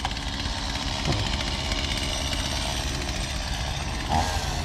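Engine running steadily.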